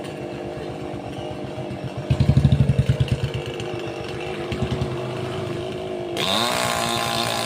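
Chainsaw engine running, with a louder pulsing burst about two seconds in and a sudden brighter, higher-pitched run near the end as the saw revs up.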